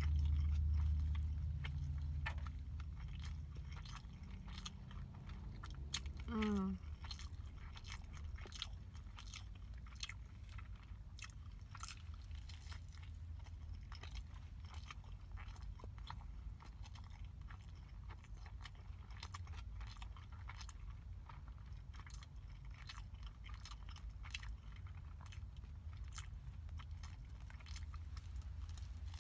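Close-miked chewing of a hamburger, with many small wet mouth clicks and soft crunches of bun and lettuce all through. A short falling hum comes about six seconds in.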